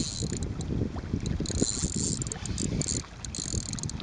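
Wind buffeting the microphone, with stretches of high whirring from a fishing reel being wound in as a lure is retrieved; the whirring stops and starts.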